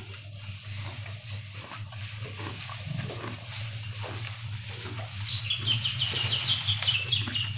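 A cow feeding on fresh green grass among dry straw: rustling, crunching tears every half second or so over a steady low hum. From about five seconds in, a bird chirps rapidly in a quick run of high notes.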